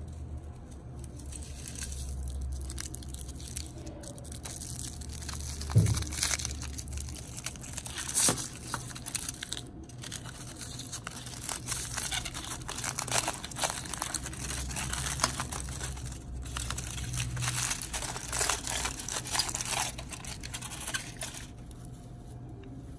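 Aluminium foil being crumpled and pulled apart by hand to unwrap a toy car, crinkling irregularly throughout, with a couple of sharper crackles about six and eight seconds in.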